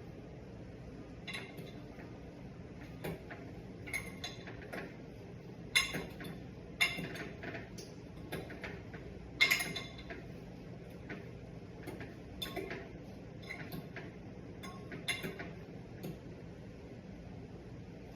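A fork scraping and clinking against a pot while fluffing cooked rice pilaf, in irregular strokes with a few sharper clinks.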